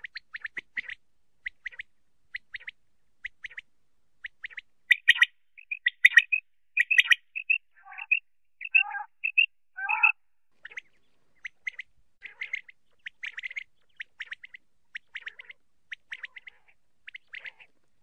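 Common quail calling: quick groups of short, high, clipped notes, repeated over and over, with a louder, rougher stretch of calls in the middle.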